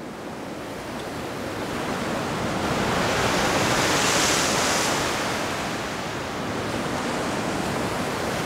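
Ocean surf breaking on the shore, with wind. The rush of the waves swells to its loudest about four seconds in, then settles to a steady wash.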